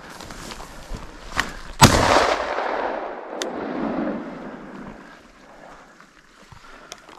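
A single shotgun shot about two seconds in, followed by a long echo that fades away over about three seconds.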